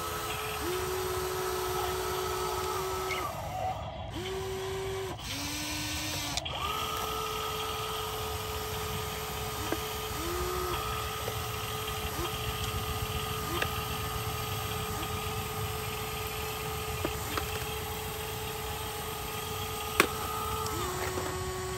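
Small electric gear motors of a remote-control toy excavator whining as it drives its tracks and works its arm, in runs that stop and start and change pitch as different motors take over. A sharp click sounds near the end.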